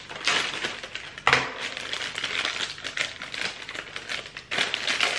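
Thin clear plastic packaging bag crinkling and rustling in the hands as a pair of safety glasses is worked out of it, with a sharp snap a little over a second in.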